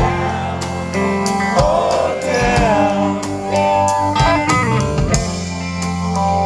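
Live rock band playing through a PA: electric guitars, bass guitar and a drum kit, with a bending lead line about two seconds in.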